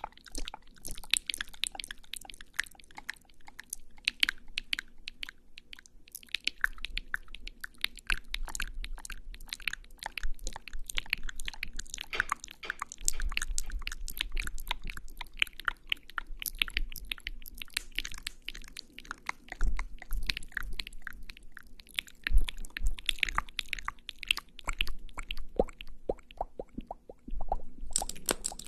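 Close-miked ASMR sounds of lipstick being applied to the lips: a dense, continuous run of small crackly clicks and sticky mouth sounds.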